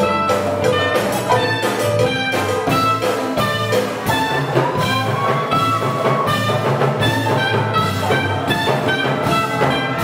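Live Latin big band playing Afro-Cuban jazz with a steady percussive beat, upright bass and drum kit.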